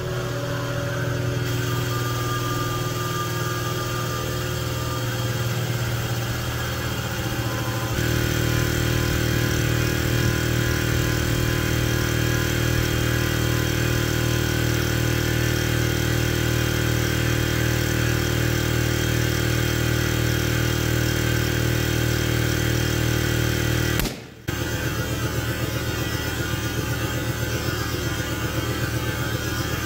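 Air compressor running steadily as it pumps air into a bicycle tire, building pressure. Its sound steps up about a quarter of the way through and cuts out for a moment near the end.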